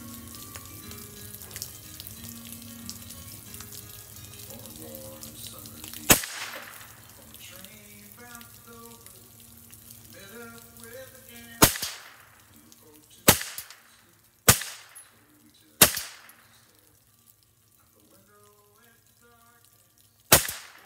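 Custom Ruger 10/22 semi-automatic .22 LR rifle firing six single shots, each a sharp crack with a short echo: one about six seconds in, four more a second or so apart in the second half, and a last one near the end.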